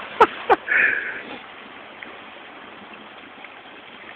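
Three quick wet plops in the first half-second as koi splash and mouth at the pond surface by a hand held in the water, followed by a steady faint wash like running water.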